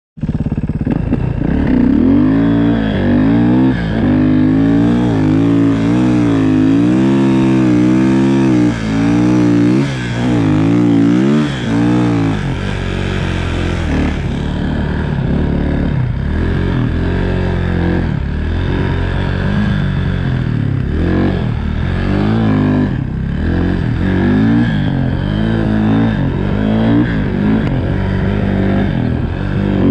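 Snowmobile engine running hard under throttle, its pitch rising and falling again and again as the throttle is worked. The swings are widest over the first dozen seconds, then the engine settles into a steadier, lower note with smaller surges.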